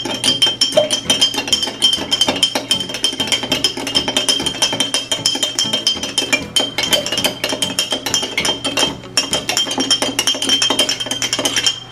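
A spoon stirring a drink in a glass with no ice yet, striking the glass in rapid clinks that keep it ringing at a steady high pitch, with a short break about nine seconds in.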